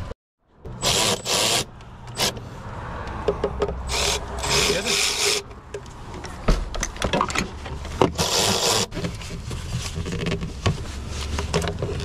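Hands working in an engine bay with a spark plug socket on an extension and the air intake tube: rubbing and scraping, three longer scraping bursts, and scattered sharp clicks of metal tools and parts.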